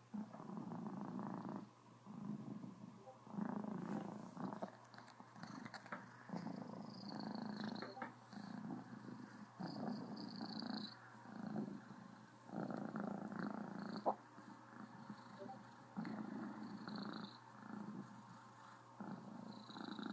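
A Cornish Rex cat purring full-on and loudly, the purr swelling and fading with each breath about every second and a half. A single sharp click comes about two-thirds of the way through.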